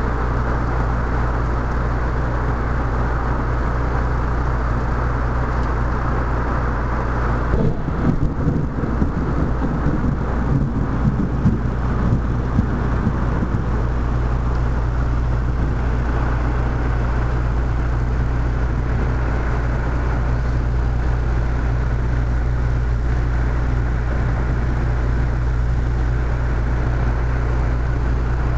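Heavy rain pouring steadily over a constant low hum, with a roll of thunder rumbling and crackling from about eight seconds in for some five seconds before dying back into the rain.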